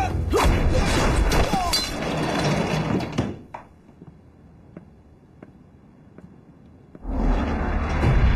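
Kung fu fight sound effects, with blows, thuds and whooshes over soundtrack music, stopping about three seconds in. Then a quiet stretch of faint, evenly paced footsteps on a wooden floor, before loud music comes back in near the end.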